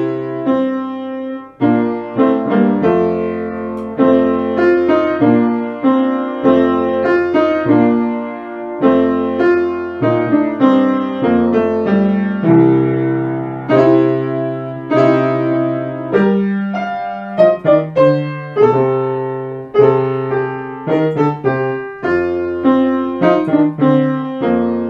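Background piano music: a steady run of single struck notes and chords, each ringing and fading before the next.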